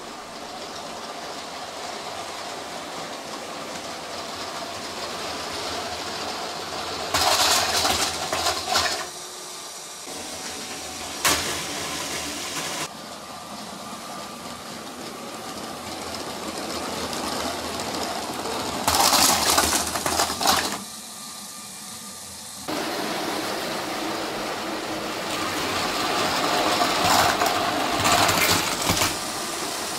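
LEGO trains running on plastic LEGO track: a steady motor whir and wheel clatter that builds as a train approaches and grows loud three times as it passes close by, with sharp clacks over the rail joints and points.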